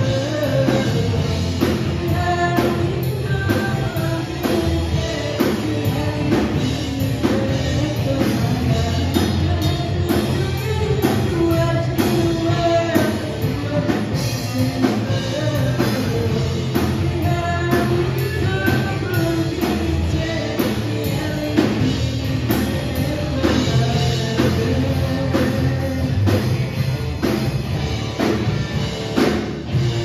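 Live rock band playing: a drum kit, electric guitars and a singer's voice.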